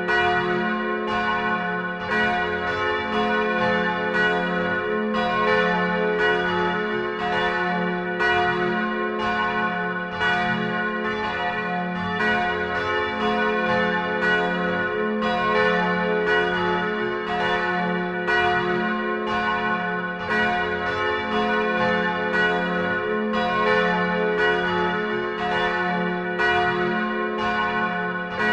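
Church bells pealing: several bells struck over and over in a steady, unbroken ring, their tones overlapping.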